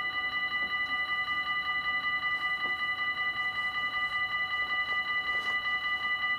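Level crossing warning bell ringing in a rapid, even rhythm, several strikes a second, signalling that the crossing is closed for an approaching train while the barriers come down.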